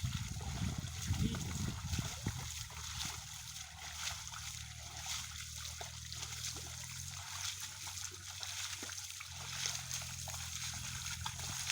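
Muddy water splashing and sloshing as a flooded rice paddy is ploughed, with a steady low drone underneath that fades briefly about two-thirds of the way through.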